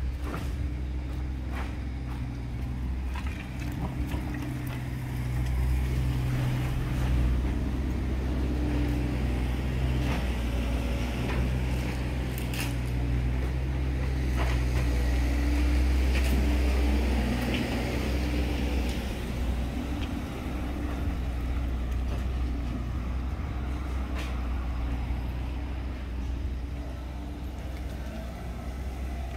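Vehicle traffic: a steady low engine rumble that swells and eases as vehicles pass.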